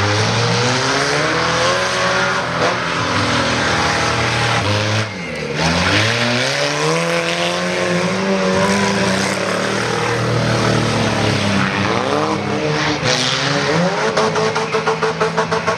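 Several stock-car engines racing on a dirt track, revving up and easing off so the engine pitch keeps rising and falling through the corners. About five seconds in, one engine drops off briefly and then climbs again. Near the end the sound turns choppy, pulsing several times a second.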